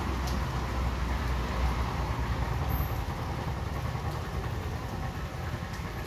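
Steady rainfall hiss with a low rumble underneath that fades from about halfway through.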